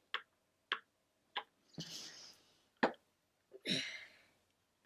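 A child playing with a plastic toy tank: a few sharp clicks of plastic parts being handled, and twice a breathy hissing burst, a mouth-made shooting noise.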